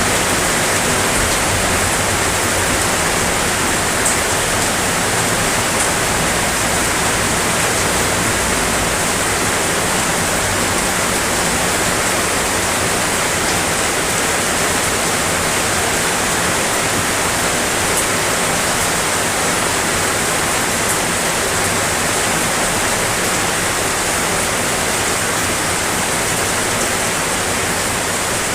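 Heavy rain falling steadily: a dense, even hiss with no let-up, and an occasional sharper drop-tick.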